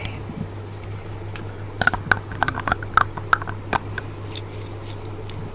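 A small clear plastic container being handled, giving a quick run of sharp clicks and crackles for about two seconds in the middle.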